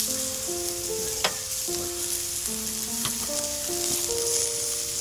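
Beef and vegetables sizzling on a hot stone grill plate, a steady hiss with a couple of sharp pops, about a second in and again around three seconds in. Light background music with a simple melody plays underneath.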